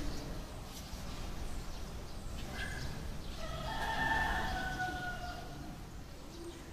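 A rooster crowing once: a single long call of about two seconds, starting about halfway through and trailing off at the end.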